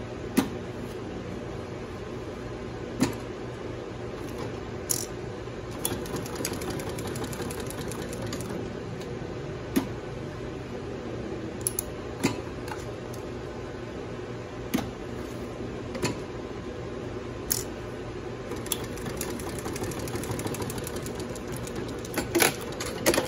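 Mitsubishi 1/4-inch split-needle-bar double-needle walking-foot lockstitch machine sewing heavy fabric: a steady mechanical hum of the running machine, broken by sharp clacks every two to three seconds.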